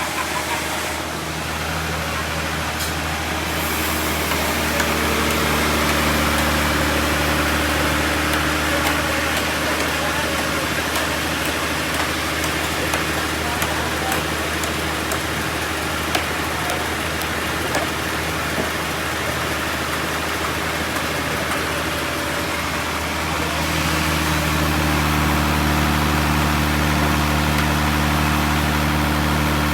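Sawmill running with a steady engine hum. From about four seconds in until near the end, a louder, noisy sound of the saw cutting through a trembesi log covers the hum, which then steadies again.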